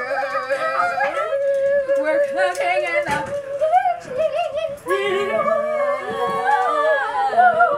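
Young girls singing a made-up song loudly and playfully, with long wailing held notes and several voices overlapping.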